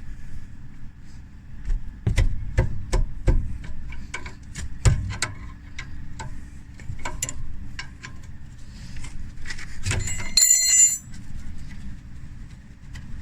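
Metal hand tools clicking and knocking against brake parts during a brake pad change, with one bright ringing metallic clink, like a tool striking or dropping onto metal, about ten seconds in. A steady low hum runs underneath.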